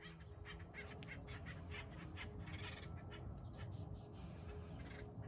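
Acorn woodpeckers calling: a rapid run of short, harsh calls.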